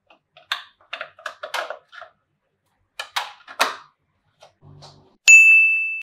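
Small magnetic balls clicking and clacking together as pieces are fitted, a run of quick light clicks. About five seconds in, a loud ding sound effect strikes and rings on one high steady tone until it cuts off abruptly.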